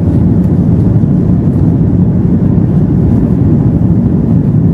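Steady low rumble and rush of a jet airliner in flight, heard from inside the passenger cabin.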